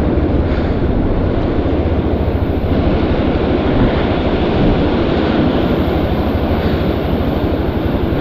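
Motorcycle engine running steadily at low speed over a rocky track, mixed with the loud rush of a fast glacial meltwater river alongside and wind on the microphone.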